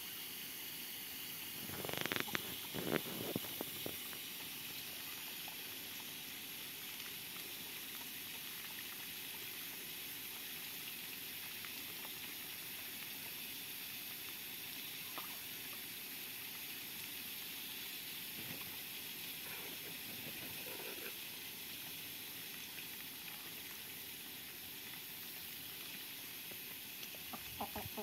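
Muscovy ducks dabbling and slurping with their bills in a shallow puddle: a cluster of short wet splashes and clicks about two to four seconds in, a few fainter ones later, over a steady background hiss.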